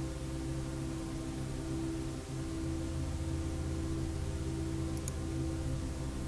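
A steady low electronic drone with a held mid-pitched tone over it and a faint hiss, an ambient horror soundscape.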